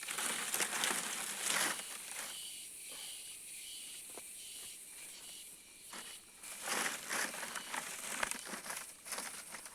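Irregular rustling and scraping, as of something being handled, twice with a pause between. Insects chirp steadily in the background.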